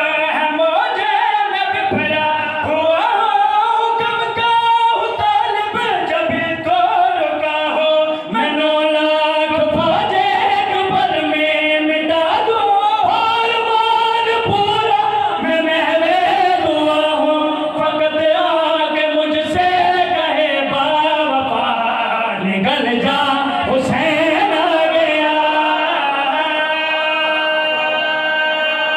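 Men's voices singing a mourning recitation together into a microphone through a PA, in long, drawn-out melodic lines without a break.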